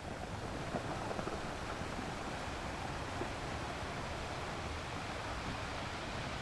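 Sea waves washing on a shore, a steady surf with a light sprinkle of crackle in the first second or so.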